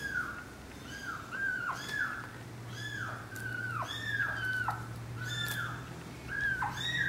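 Young kitten mewing repeatedly in short, high-pitched cries that fall in pitch, about two a second, while its rear is rubbed with a tissue to make it pass stool.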